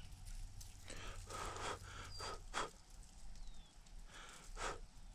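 Short puffs of breath blown over a palmful of hand-rubbed wheat heads, blowing the chaff off the kernels: a quick cluster of puffs, then two more near the end.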